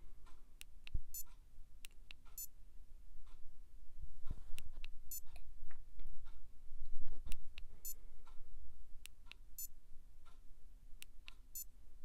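Thumb clicking the buttons of a Garmin Edge remote, with short high-pitched beeps from the Garmin Edge 130 cycling computer as it switches data pages. There are about seven beeps and several sharp clicks, spaced unevenly a second or two apart.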